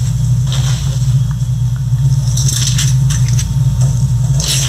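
Crumpled aluminium foil and a clear plastic sheet rustling and crinkling as they are slid across the table, in a few short bursts about halfway through and near the end, over a loud steady low hum.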